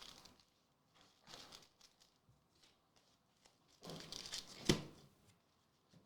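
Card-pack packaging handled in short bursts of rustling and crinkling, the longest a little past the middle, with one sharp knock just before the end of that stretch.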